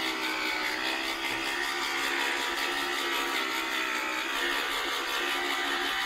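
Electric-converted reel lawnmower running at part throttle: a 36V scooter motor driving the cutting reel through a chain, giving a steady whine with the whir of the spinning reel.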